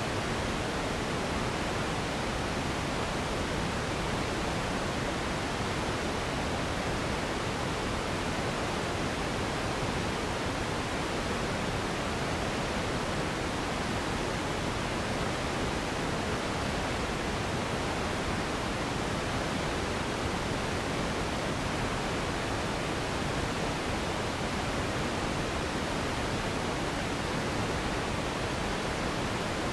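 Continuous steady noise for sleep and relaxation, even and unchanging, fuller in the lows and mids and softer in the highs.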